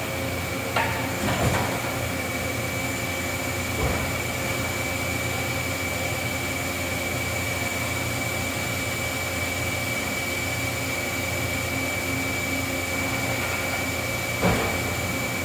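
Makino A88 horizontal machining center going through a pallet change: a steady mechanical hum with a high, even whine, and short clunks about a second in, near four seconds and near the end as the pallet and door move.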